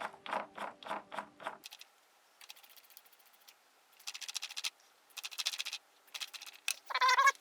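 Scrubbing of a revolver's cylinder to lift carbon rings, at first in quick, even strokes, about five a second, then in several short bursts of faster scratching with pauses between them.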